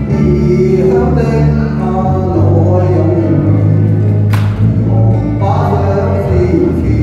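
A man singing a pop ballad into a microphone over backing music, both amplified through a PA system, with a single sharp click about four seconds in.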